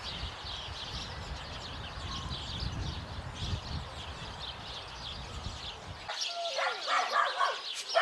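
Small birds chirping over a low rumble. About six seconds in the rumble cuts off and dogs start barking, with a short downward-sliding whine among the barks.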